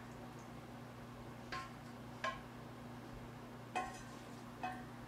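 Four light clinks of kitchenware, a measuring cup and utensils knocking against a metal stockpot and a glass mixing bowl, each with a brief ring, as hot broth is dipped out and added to cornbread stuffing.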